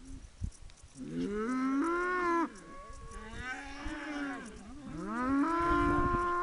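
Cattle mooing: two long calls, the first about a second in and the second from about five seconds in, each rising in pitch and then held, with a fainter call between them.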